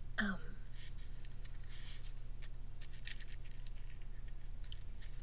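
Light, irregular clicks and rustles of small objects being handled, over a steady low hum, with a brief murmured 'hmm' at the start.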